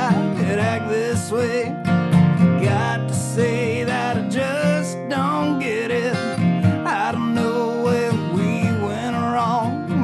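Country-style song with strummed acoustic guitar and a wavering melody line over it, with no sung words.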